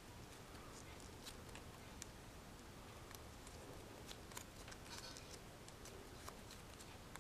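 Faint crinkling and rustling of a paper strip being folded by hand into a hexahexaflexagon, with scattered small clicks at irregular moments.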